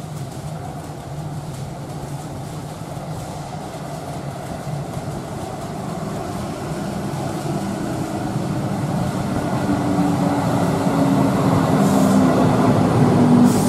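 Suburban electric train approaching through the tunnel into an underground station platform, its rumble growing steadily louder throughout. A motor hum comes in over the last few seconds as the train draws into the platform.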